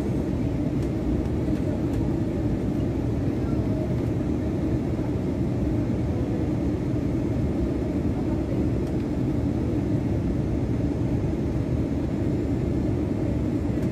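Steady low rumble of a Boeing 737 jet airliner's engines and airflow heard inside the passenger cabin, during the approach to landing.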